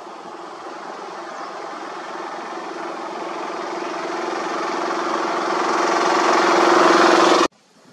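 A motor vehicle engine running steadily and growing louder as it approaches, cut off suddenly near the end.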